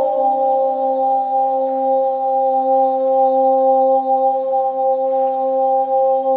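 Meditative drone music: one long tone held steady on a single pitch, with a few overtones ringing above it.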